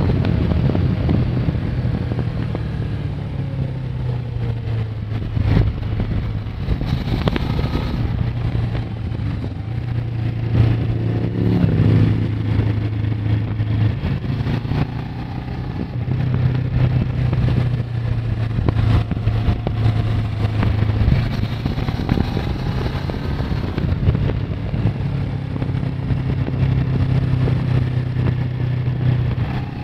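Kawasaki ER-6n's 649 cc parallel-twin engine running under way, heard from the rider's seat. Its note rises and falls with the throttle through a series of bends, with a quick rise in pitch about twelve seconds in.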